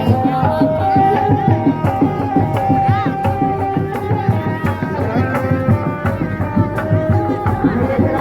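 Live kuda lumping ensemble music: hand drums (kendang) played in a busy rhythm beneath a melody of long held notes that step from pitch to pitch.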